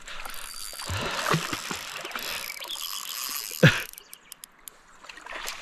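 Fishing reel being wound in against a hooked fish, a fast rattling whir that stops about four seconds in, with a few knocks of the rod and reel being handled, the loudest near the end of the winding.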